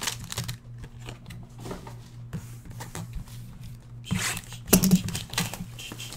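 A football trading-card hobby box being opened by hand: its wrapping tears and crinkles and the packs inside rustle, with louder crackly bursts about four seconds in and again a moment later. A steady low hum runs underneath.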